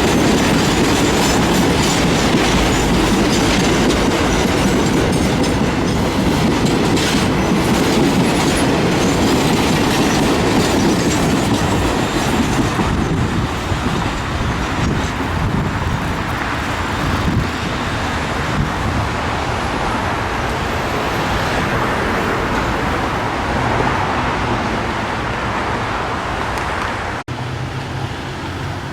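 Freight train rolling past at speed, its wagons' wheels clattering over the rail joints in a loud, steady rumble that eases slightly partway through. The sound breaks off briefly near the end.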